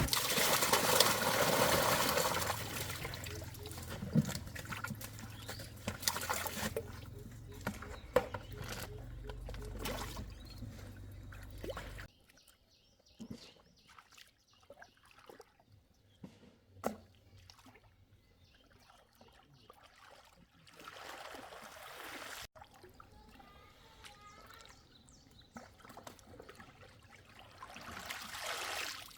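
Water splashing and trickling, loudest in the first few seconds and fading, then scattered small knocks and softer splashes.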